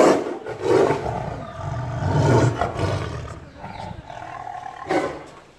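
Tiger roaring at close range: a run of roars, the loudest breaking out suddenly at the start, more surging about one and two and a half seconds in, and one more short roar about five seconds in. It is the tiger's response to a hand laid on its cage bars.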